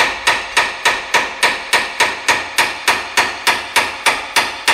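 A 1-pound ball-peen hammer striking a Ford Explorer's rusted rear knuckle in a fast, steady run of ringing metal-on-metal blows, about four a second. The knuckle's pinch slot has been spread with a screwdriver, and the blows drive the upper ball joint stud out of it.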